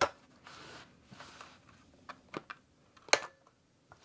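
Pliers prying small pressed-in clips out of an ECU's metal cover: a few sharp clicks as the clips pop free, with brief scraping of the pliers on the cover, the sharpest click about three seconds in.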